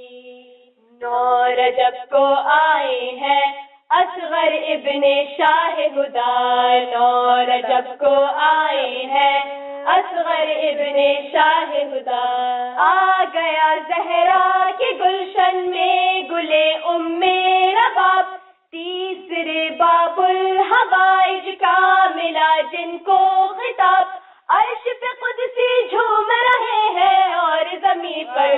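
Young female voices singing an Urdu devotional manqabat together in phrases, with short breaks between lines.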